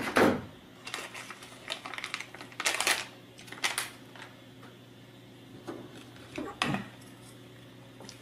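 Crinkling of a plastic anti-static bag as an Arduino Uno board is pulled out of it, in a few short bursts. Later come light clicks and taps as the board and the deck plate are handled.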